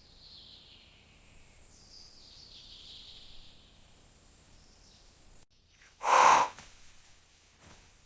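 A baby panda's sneeze: one loud, sudden burst of about half a second, about six seconds in, after a few seconds of faint high hiss.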